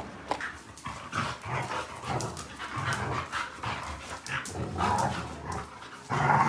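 A Rottweiler puppy and a husky play-fighting, with the dogs giving short, irregular vocal sounds throughout, loudest near the end.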